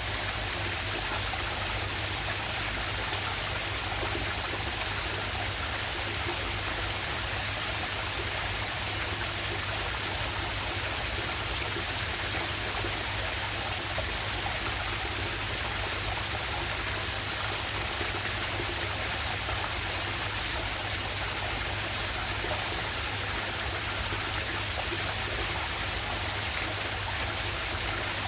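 River water rushing steadily over a waterfall, an even, unbroken sound of flowing and splashing water.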